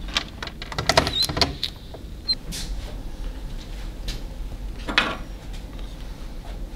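A door's lever handle turned and the wooden door opened: a quick cluster of latch clicks and knocks in the first second and a half, then another single knock about five seconds in.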